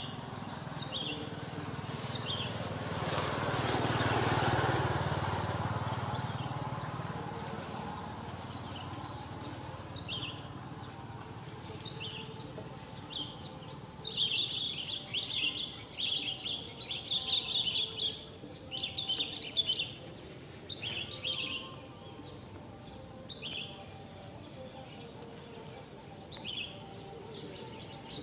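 Outdoor ambience of birds chirping: short, high calls repeated every second or so, becoming a busy run of chirps about halfway through. Early on a rush of noise swells and fades over a few seconds, like something passing by.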